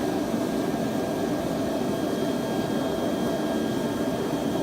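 Propane-fired forge burning with a steady rushing noise, unchanging throughout.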